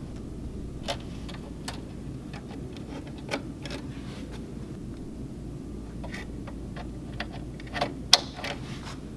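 Scattered light clicks and taps of a wiring harness and its small plastic plug being handled at a circuit board, with one sharper click about eight seconds in as the two-position connector is pressed onto its terminal.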